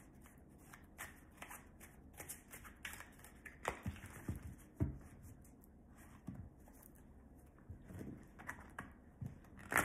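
A deck of reading cards being shuffled by hand: a soft, irregular patter of cards slipping and tapping against each other, with a few sharper taps about three and a half and five seconds in.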